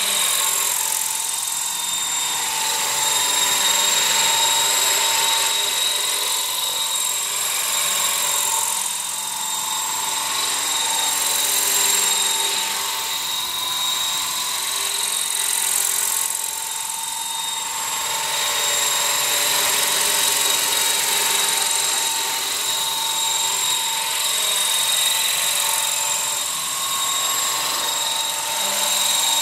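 An Align 550 electric RC helicopter with a 600 tail boom in flight, its motor and rotors giving a steady high whine. The whine swells and fades every few seconds as the helicopter moves about.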